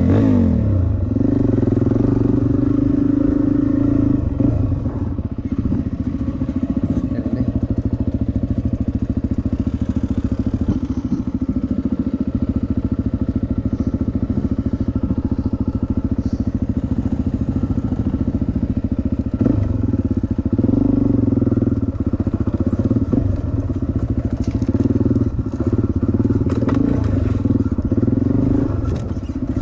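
Dirt bike engine heard from on board while riding, running steadily and surging louder several times as the throttle is opened and eased off.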